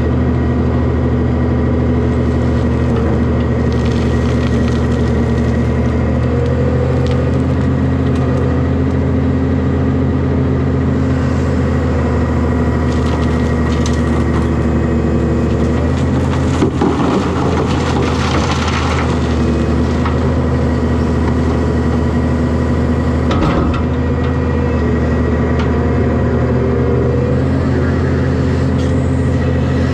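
Heavy diesel engine running steadily. A little past halfway its note shifts and a rattling crash of dumped material follows for about three seconds, typical of a bucket load of dirt or rock dropping into a dump truck box, with a single knock a few seconds later.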